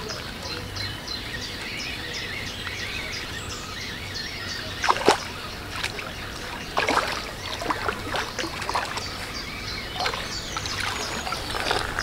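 Birdsong outdoors: a bird repeating short, high, falling chirps a few times a second. Several sharp knocks or clatters cut in, the loudest about five seconds in and more about seven and ten seconds in.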